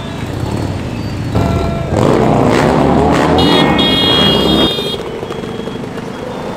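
Motorcycle engines running and revving as bikes ride past in a procession. The loudest pass-by comes from about one and a half to five seconds in, with a high-pitched tone sounding briefly over it near the middle.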